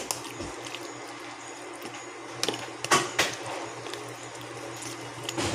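Fork and hand stirring cut squid through beaten raw egg in a plastic tub: wet squelching with scattered clicks of the fork against the tub, a few louder clacks about three seconds in. A steady low hum underneath.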